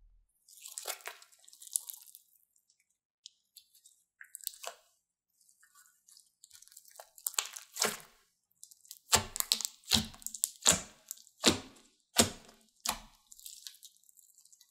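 Hands squishing and pressing a lump of thick green slime with small beads mixed in: sticky crackles and wet pops, then a run of about six louder squelching presses, roughly one every 0.7 s, near the end.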